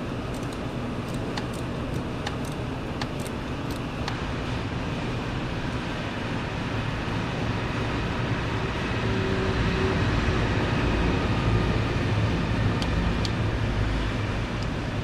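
Steady low rumble and hiss of a vehicle-like background noise, swelling in the second half. Light metallic clicks are scattered through the first few seconds and come twice more near the end, as a 10 mm gear wrench works a tight AC line bolt loose.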